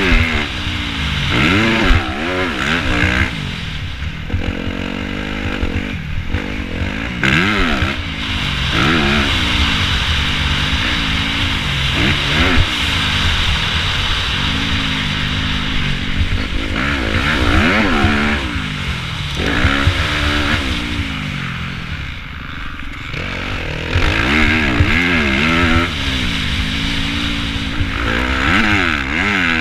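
2015 Yamaha YZ250F's 250 cc four-stroke single-cylinder engine revving hard and backing off again and again as the bike is ridden around a motocross track, its pitch climbing through each gear and dropping at each shift or closed throttle. Gusts of wind rushing over the helmet camera come and go over it.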